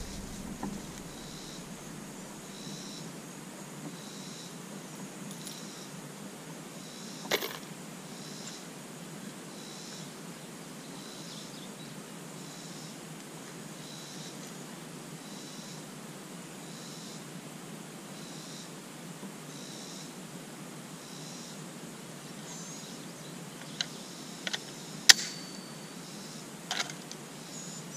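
Mostly quiet field background with a faint high pulsing about once a second; a single sharp click about seven seconds in, then several sharp metallic clicks near the end as the Fulton Armory M14 rifle is handled.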